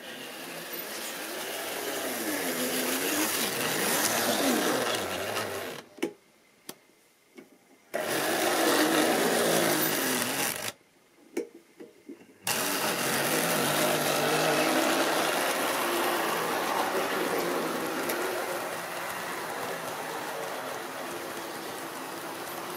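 Tri-ang model train running on its track: the locomotive's small electric motor whirrs and the wheels clatter over the rails, with a low pitch that sways up and down. The sound cuts out suddenly twice, about six and eleven seconds in, for a second or two each time with a few clicks, then comes back.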